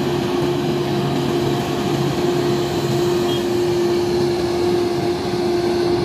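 Grove GMK6300L all-terrain mobile crane driving along a road: its diesel engine runs steadily under an even wash of engine and road noise, with one constant hum.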